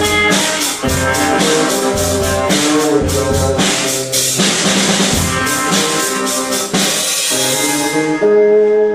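Rock band playing, recorded live in the rehearsal room, with a full drum kit driving a steady beat of bass drum, snare and cymbals under sustained pitched instruments. About seven seconds in the drum hits stop and a held chord rings on.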